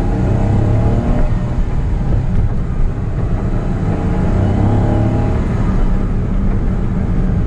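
Honda S660's small turbocharged three-cylinder engine, heard from inside the cabin as the car accelerates along the road: the engine note climbs near the start, eases, and climbs again about halfway, over steady road noise.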